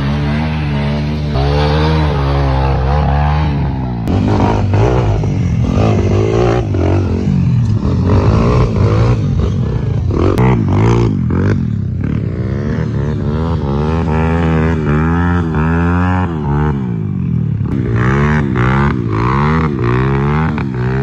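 Motorcycle engines revving hard, their pitch repeatedly rising and falling as the throttle is blipped during wheelspins in loose dirt. The sound changes abruptly several times as one bike gives way to another.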